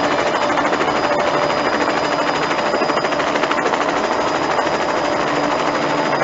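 Steady, rapid mechanical pulsing noise with no change in level, with a few faint steady tones held underneath.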